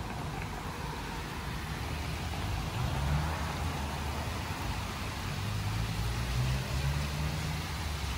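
Steady outdoor rush of street traffic and water sliding down a wall fountain, with a low rumble that swells about halfway through.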